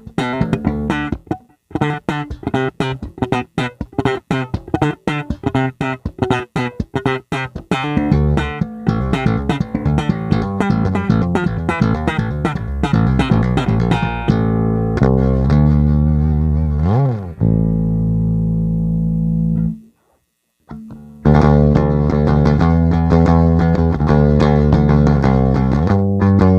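Epiphone Thunderbird electric bass on its neck pickup alone, played direct. Quick runs of plucked notes give way to longer held low notes, with a glide up in pitch and back down about 17 s in. The playing stops briefly near 20 s, then picks up again.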